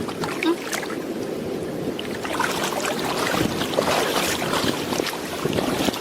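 Shallow water splashing and sloshing as hands grab at a slippery fish in a tide pool, busier in the second half, over a steady low rumble.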